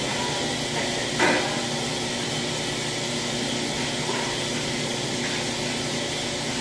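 Steady whirring of running laundry machines, with a single sharp knock about a second in as a machine lid is lifted.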